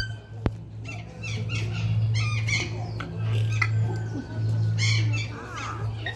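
Short, scattered calls from a black cockatoo over a low steady hum, with one sharp click about half a second in.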